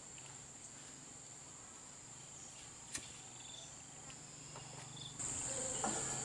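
Insects chirring steadily at a high pitch, with one sharp click about three seconds in; the chirring grows louder about a second before the end.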